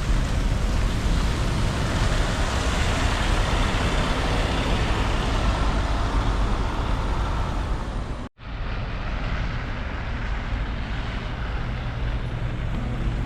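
Road traffic noise, vehicles such as buses and trucks passing on a city street. About eight seconds in it cuts off abruptly, then a lower, steadier rumble with less hiss carries on.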